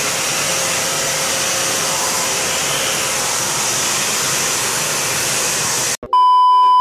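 A Kärcher WD3 wet-and-dry vacuum cleaner runs loud and steady: an even rush of air with a faint hum under it. About six seconds in it cuts off abruptly. A louder, steady, high test-tone beep of a TV colour-bar test signal replaces it for about a second.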